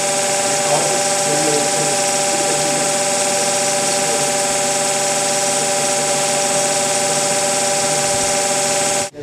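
DGSI CC-300 concrete compression machine running as it loads a concrete cube: a loud, steady buzzing hum that cuts off suddenly near the end.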